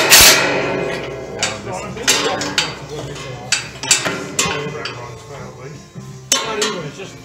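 Sharp metal-on-metal clanks and knocks, a dozen or so at irregular spacing, each ringing briefly, from tools and a socket extension working the bolts of a steel truck bumper's mounting brackets. The loudest clank comes right at the start.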